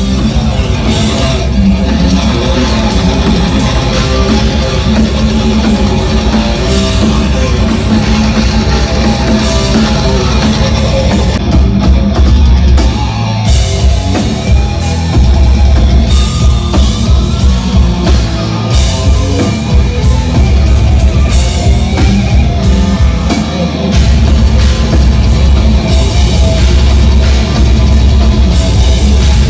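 Loud heavy metal music with drum kit and guitars.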